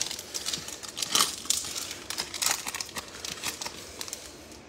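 Foil wrapper of a Prizm Draft Picks basketball card pack being torn open and crinkled: a run of crackling rips, loudest about a second in, then smaller crinkles.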